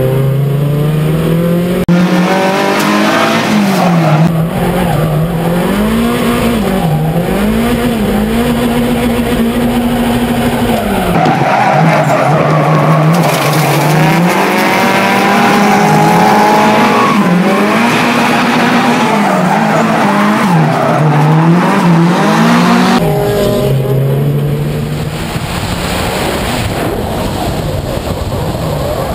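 Drift cars at full throttle: the engine's pitch swings up and down about once a second as the throttle is worked mid-drift, over the hiss and squeal of sliding tyres. The sound changes abruptly a few times.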